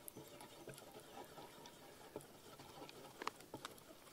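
Soft rustling of a food packet and small clicks of a spoon in a small metal pot as dry powder is poured in and stirred, with a few sharper clicks about three seconds in.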